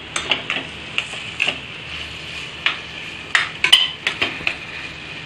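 Spoon stirring and sautéing a mashed potato and vegetable stuffing in a stainless steel pot, clinking and scraping against the metal at irregular moments over a steady low sizzle of the mixture frying.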